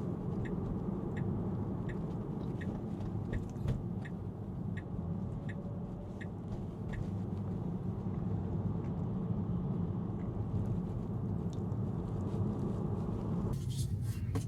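Road and tyre noise inside a Tesla's cabin while driving, with the turn-signal indicator ticking steadily about one and a half times a second. The ticking stops about eleven seconds in.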